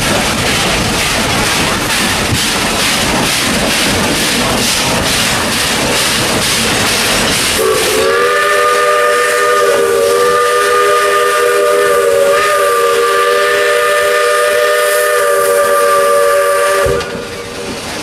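Steam locomotive working, with hissing, chuffing steam. About eight seconds in, its steam whistle blows one long, multi-note chord for about nine seconds, which cuts off sharply near the end.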